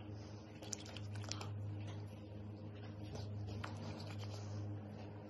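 Faint soft squishing and light ticks of moisturising cream being rubbed between the fingers and palms, over a steady low hum.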